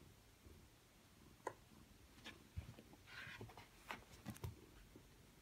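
Hand rubbing a cat's fur: a faint rustle with a few light clicks and taps, clustered in the middle of an otherwise near-silent stretch.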